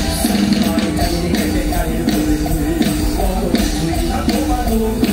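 Live amplified band music with male vocalists singing a medley over a steady beat, heard through the stage PA loudspeakers.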